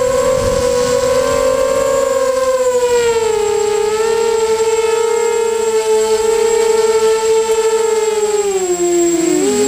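Electric motors and propellers of a remote-controlled aircraft whining steadily at a high pitch. The pitch steps down a little about three seconds in, then drops and wavers near the end as the motors change speed.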